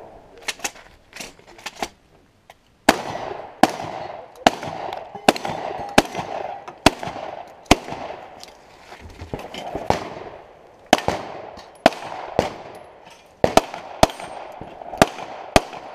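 Echoing gunfire: a steady string of about seven shotgun shots, roughly one every 0.8 seconds, then after a short pause a quicker, uneven run of pistol shots.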